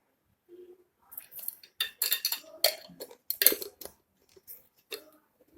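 Kitchen utensils clinking and clattering: a spoon and containers knocking against a bowl in a quick run of sharp clicks for a couple of seconds, then a few fainter knocks, as spice powder is added to the batter flour.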